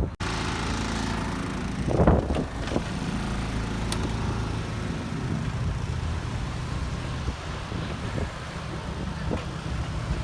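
A vehicle engine running steadily, with a brief louder rush about two seconds in and a sharp click about four seconds in.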